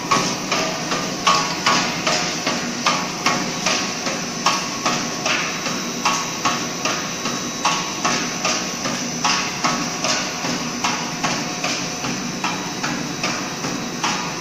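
Wavy chip pellet production line machinery running, with a steady rhythmic knocking of about two to three sharp knocks a second over a continuous machine hum.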